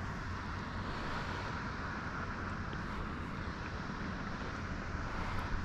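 Steady rushing noise of water pouring down a dam spillway, with wind buffeting the microphone as a low rumble.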